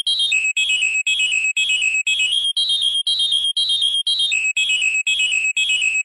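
Electronic fire alarm sounder tone, pulsing about twice a second and stepping between a higher and a lower pitch every two seconds or so.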